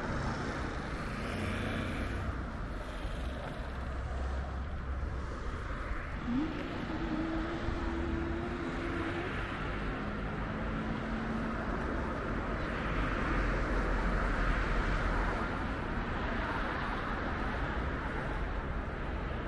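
Steady outdoor road-traffic background with a low rumble. About six seconds in, a droning tone rises briefly and holds for around three seconds before fading into the hum.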